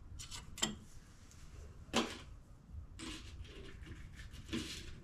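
A few light knocks and clinks, the sharpest about two seconds in: bolts and parts being picked up and handled during the catch can install.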